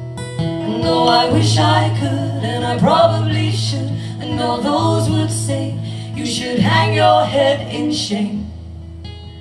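Live acoustic song: sung vocal lines over sustained acoustic guitar chords.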